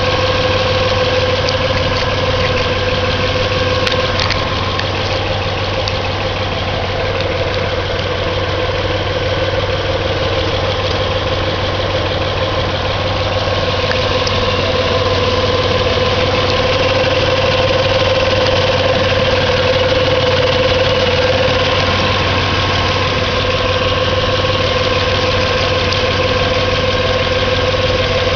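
1997 Nissan VQ-series V6 engine idling steadily, a constant pitched tone running through it: the noise the owner noticed after spraying the engine with Fluid Film.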